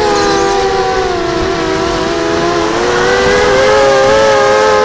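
QAV250 mini quadcopter's brushless motors and propellers whining, several close pitches sounding together. The pitch sags over the first second or so and rises again about three seconds in as the throttle changes.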